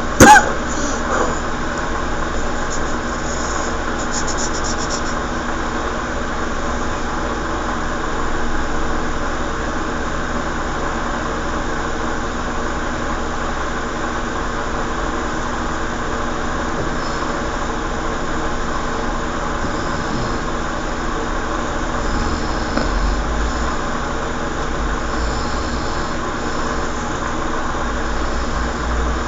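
Steady mechanical hum running throughout, with a sharp click right at the start.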